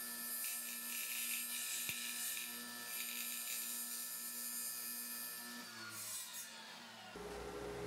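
Table saw running steadily while trimming clear plastic flush to a wooden block, the motor hum mixed with a hissy cutting noise. About six seconds in the saw is switched off and its pitch falls as the blade coasts down.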